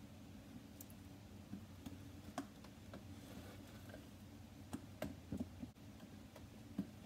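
A metal utensil stirring glue and shaving cream in a glass bowl, making faint irregular clicks and taps against the glass.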